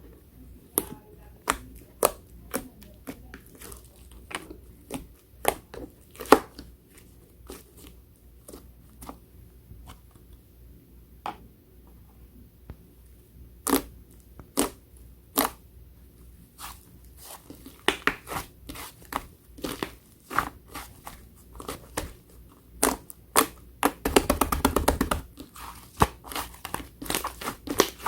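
Slime being pressed and stretched by hand, making crisp clicks and pops, with a quick run of crackles near the end.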